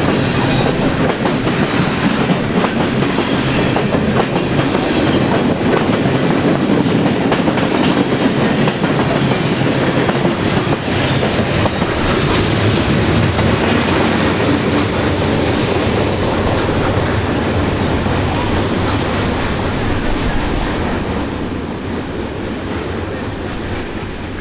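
CN freight train's cars rolling past, their wheels clicking over the rail joints. The sound eases off in the last few seconds.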